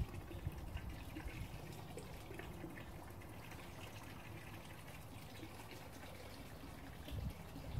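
Water trickling and splashing from the valve of a homemade water ram pump into a drum of water, with a low rumble underneath.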